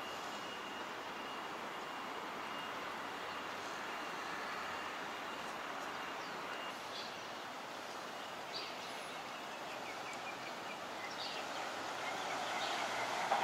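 Steady outdoor city ambience: a distant traffic hum, with a few faint high chirps over it, growing a little louder near the end.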